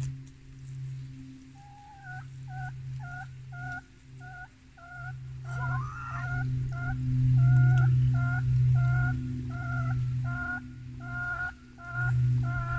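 A bird calling the same short note over and over, about two to three times a second, over a steady low hum.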